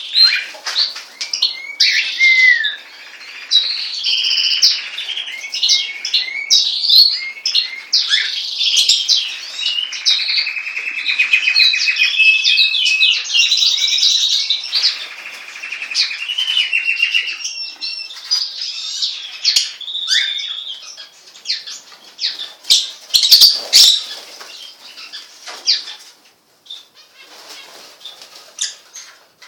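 Caged pet birds chirping and trilling almost continuously, many quick high notes overlapping, with a few sharp wing flutters about 23 seconds in; the chirping thins out near the end.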